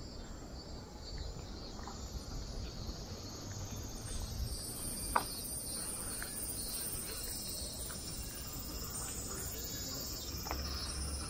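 Summer cicadas in the roadside trees, a steady high-pitched buzzing chorus that grows stronger a few seconds in, over low street ambience. A single sharp click sounds about five seconds in.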